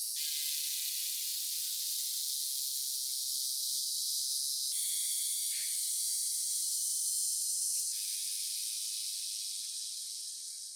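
Steady high-pitched spraying hiss, changing abruptly in tone about five seconds in and again near eight seconds.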